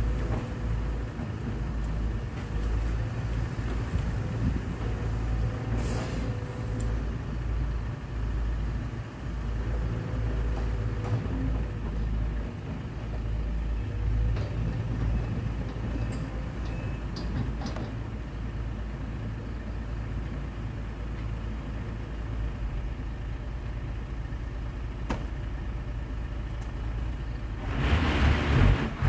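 Diesel engines of a tipping dump truck and a Sumitomo 210 excavator running steadily, rising to a louder rush near the end.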